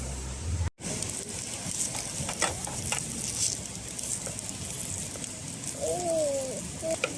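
Steady sizzling hiss with scattered light clicks, and a brief rising-and-falling hum about six seconds in.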